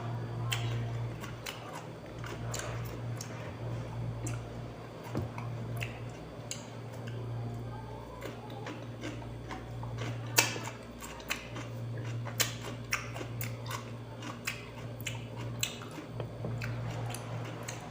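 Chewing and biting raw cucumber: irregular crisp crunches and wet mouth clicks, the loudest about ten seconds in, over a steady low hum.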